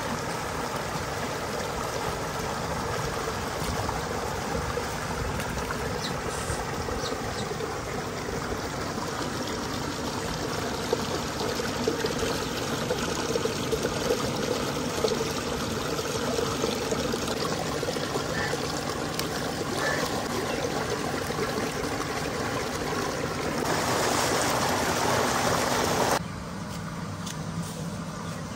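Water gushing steadily from a pipe outlet into a concrete tank and running down an earth irrigation channel, with a few small splashes in the middle. It grows louder for a couple of seconds near the end, then drops suddenly.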